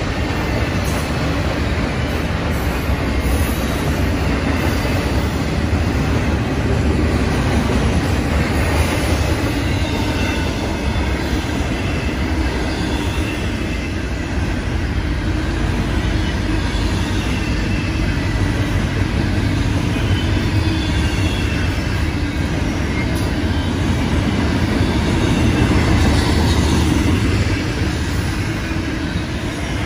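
Double-stack container well cars of a BNSF intermodal train rolling past at speed: a steady, loud rumble of steel wheels on rail, with faint high wheel squeals drifting in and out.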